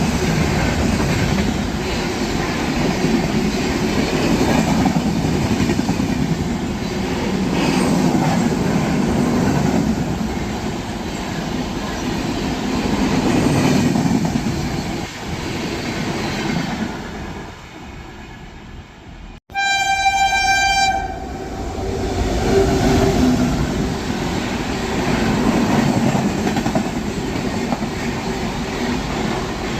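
Indian Railways train running, a steady rumble of wheels and cars that fades about 17 seconds in. After a sudden cut a little past 19 seconds, a train horn sounds for about a second and a half, then the running noise resumes.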